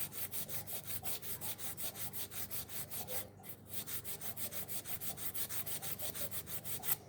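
Sandpaper rubbed by hand back and forth over an old wooden handle, stripping off lacquer: quick, even rasping strokes, about six a second, with a short pause about three seconds in.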